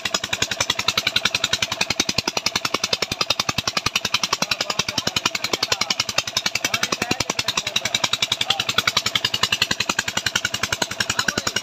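The engine driving a tubewell pump runs with a rapid, even beat of several pulses a second, and water gushes from the outlet pipe into the concrete tank.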